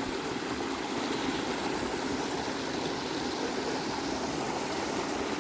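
Small natural forest waterfall: a steady, even rush of falling and running water.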